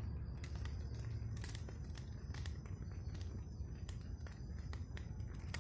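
Wood campfire crackling, with many short irregular pops and snaps, over the low steady rush of a river flowing.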